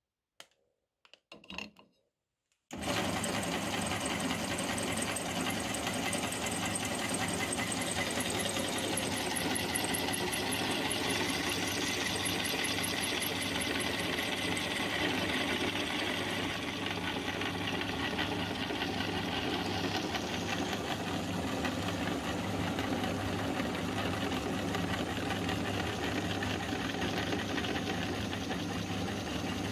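Electric meat grinder switching on about three seconds in and running with a steady hum as it grinds chocolate-coated ice cream bars pushed into its hopper.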